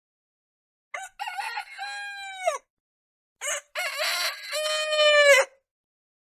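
A rooster crowing twice, two full cock-a-doodle-doos of about two seconds each. Each crow holds its pitch and then drops off at the end, and the second is louder.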